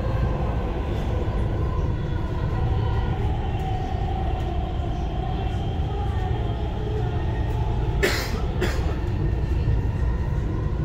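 Dubai Metro train heard from inside the car while running between stations: a steady low rumble of wheels on rail with a faint electric motor whine that shifts slightly in pitch. About eight seconds in come two short sharp noises, half a second apart.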